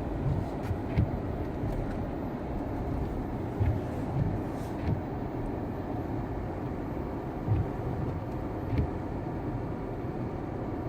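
Car driving through snow: steady road and tyre noise, with a few irregular low thumps.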